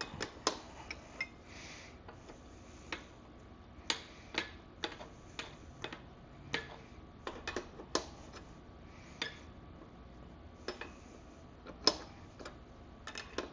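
Hand tools clinking against metal: scattered, irregular light metallic clicks and taps, with pauses between.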